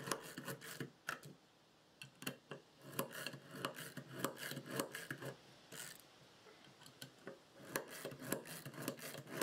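Stanley Yankee ratchet screwdriver with a homemade Phillips bit driving wood screws into wood: bursts of scraping, clicking strokes as each screw is turned home, with short pauses between screws.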